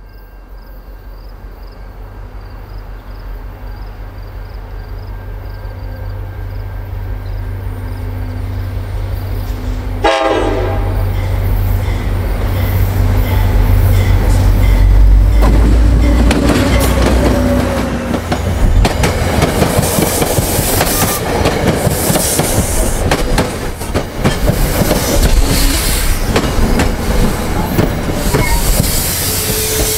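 NJ Transit commuter train approaching and passing close by. A low rumble grows steadily louder for about ten seconds, then the rushing noise and rapid clatter of steel wheels on the rails take over as the bilevel coaches go by.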